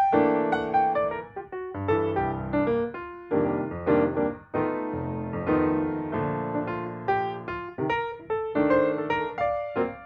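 Background piano music, notes played in quick succession, each starting sharply and fading.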